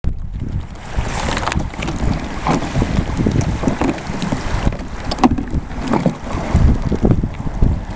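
Wind buffeting the microphone, with scattered crackles and knocks as the folded hull sheet of a folding hard-shell kayak is unrolled and handled.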